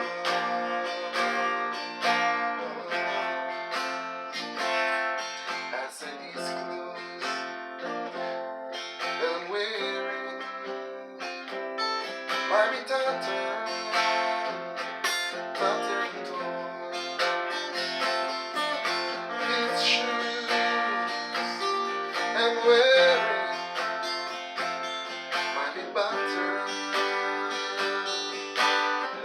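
Acoustic guitar playing an instrumental passage, strummed and picked with many quick plucked notes.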